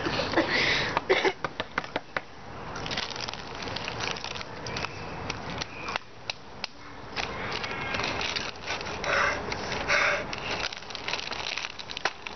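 Foil snack bags crinkling and crunchy Cheetos being chewed: an irregular run of sharp crackles and clicks.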